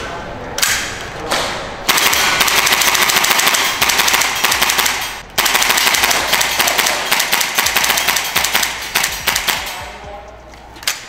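PTS Masada gas blowback airsoft rifle fired semi-automatically in a fast string of shots, the gas-driven bolt cycling with each one. The string pauses briefly after about five seconds, then resumes and thins out near the end.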